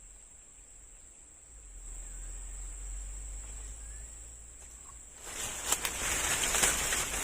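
Steady high-pitched trill of crickets or similar insects. About five seconds in, a much louder rustling, crackling noise with many sharp clicks starts and carries on.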